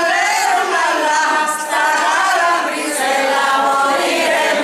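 A group of elderly women singing a traditional folk song together, unaccompanied, in long held notes, with a short break between phrases about halfway through.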